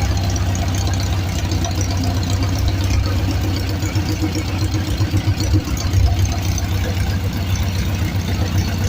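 Volkswagen engine running steadily on LPG fuel, a constant low engine note, with the level wavering unevenly for a couple of seconds midway.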